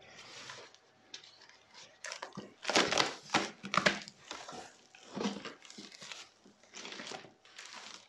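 Box cutter slitting packing tape on a cardboard box, then tape tearing and cardboard flaps pulled open, loudest about three to four seconds in. Crinkling bubble wrap follows in short bursts.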